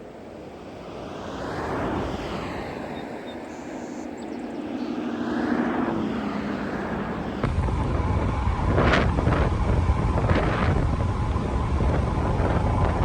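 A passing engine rises and fades, with a slightly gliding pitch. After an abrupt cut about halfway through comes heavy low wind rumble on the microphone with a few sharp knocks.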